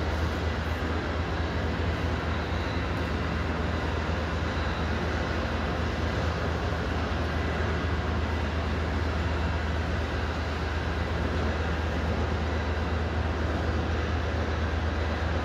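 A squeegee pushes soapy water across a soaked Persian silk carpet, over a steady low machine hum.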